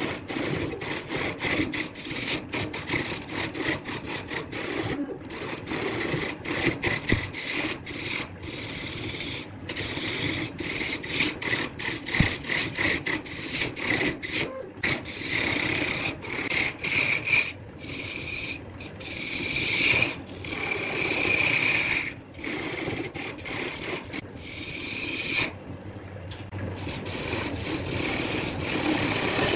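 Wood lathe spinning while a turning tool cuts into the wood, a continuous scraping rasp broken every second or so by very short gaps.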